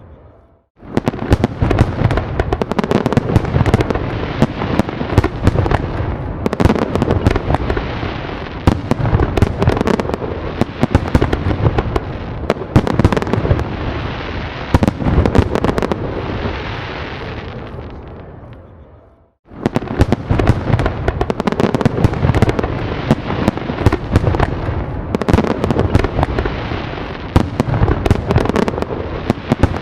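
A dense fireworks barrage: many overlapping bangs and booms over continuous crackling. It starts suddenly just under a second in, dies away around 18 to 19 seconds in, then starts again abruptly after a brief silence.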